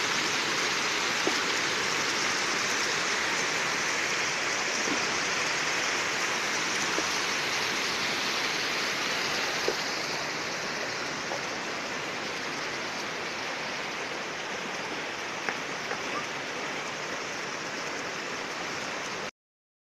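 River water rushing and splashing as it pours over and through a bamboo-slat fish trap, a steady rush. It eases a little about halfway through and cuts off abruptly near the end.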